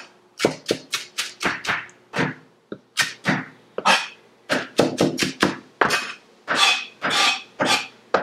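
A big wide-bladed kitchen knife chopping fresh cilantro fine on a plastic cutting board: quick, even knocks of the blade on the board, about three to four a second.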